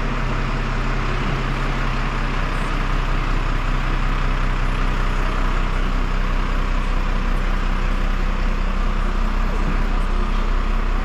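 Crane truck's engine running steadily with an even low hum.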